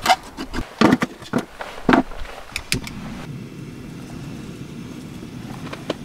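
Several sharp clicks and knocks of hands working at a small fire being lit, then from about three seconds in a steady low rumble.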